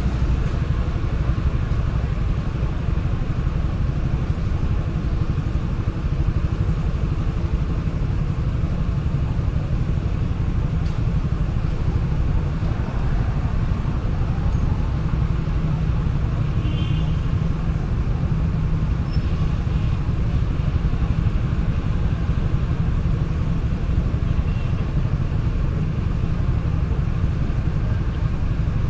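Steady low rumble heard from inside a stationary car's cabin: its idling engine, with road traffic crossing in front.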